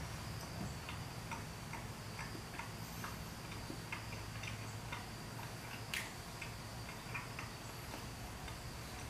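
Quiet chewing of a bite of buttered Vegemite toast: soft, irregular mouth clicks about two or three a second, with one sharper click about six seconds in, over a steady low hum.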